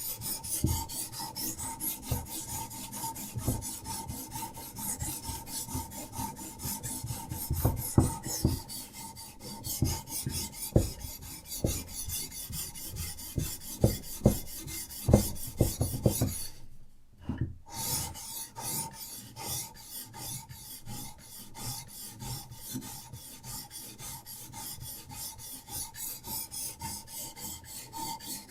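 Diamond sharpening stone rasping in quick repeated strokes along a knife blade's edge on a guided sharpening system. There is a brief pause about two-thirds of the way through, then the strokes resume.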